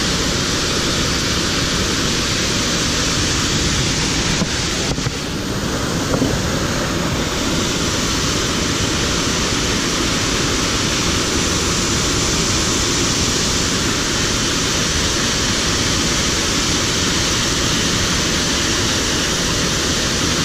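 Steady rush of a waterfall pouring into a rocky pool, with the fast stream below it.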